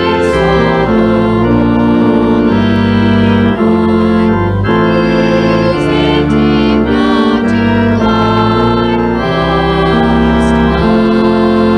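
Organ playing slow, held chords over a low bass line, the chords changing about once a second.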